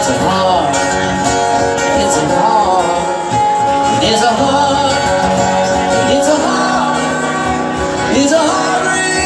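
Live solo performance: an acoustic guitar is strummed steadily while a man sings a wordless melody into the microphone, his pitch bending and wavering.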